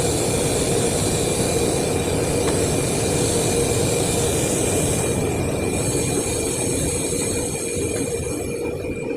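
A machine running steadily with a thin, steady high whine over a dense, loud noise. Its upper hiss thins out from about five seconds in.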